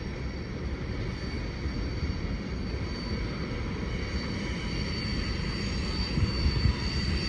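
Freight cars of a long manifest train rolling past with a steady low rumble of wheels on rail, and a faint, steady high-pitched whine over it that grows clearer in the second half.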